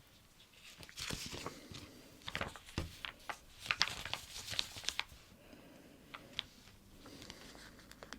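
Stickers being peeled, lifted and pressed onto a sticker book page close to the microphone: crackly sticky peeling and paper crinkling with many sharp little clicks, busiest in the first half and thinning out after about five seconds.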